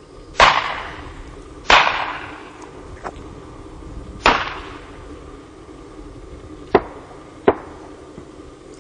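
Shotgun shots: three loud reports with a long fading echo, about half a second in, near two seconds and past four seconds, then two shorter, sharper reports near the end.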